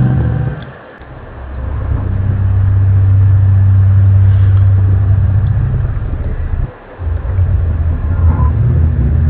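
Loud, low droning rumble with a steady deep tone, fading briefly about a second in and cutting out for a moment near the end: one of the unexplained 'strange sounds' recorded in January 2012.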